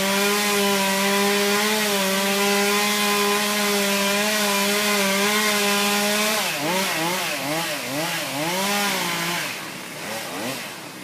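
Chainsaw engine running at a steady high speed, then its pitch rising and falling repeatedly for about three seconds as the speed changes, before the sound fades away near the end.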